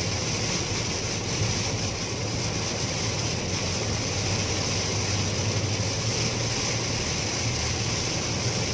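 Heavy rain on a moving car and its tyres on the wet highway, heard from inside the cabin: a steady wash of noise with a low hum underneath.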